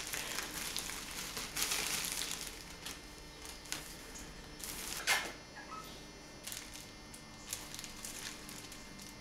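Thin plastic carrier bag rustling and crinkling as a cat wriggles inside it. The rustling is busiest in the first three seconds, then fainter and scattered.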